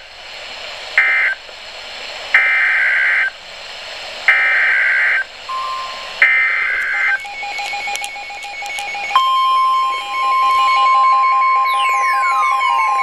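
Emergency Alert System SAME data bursts: three short two-tone digital screeches (the end-of-message code), then three longer header bursts about two seconds apart. A pulsed beeping tone follows, joined about nine seconds in by a steady single-pitch warning alert tone, with falling sweeps near the end.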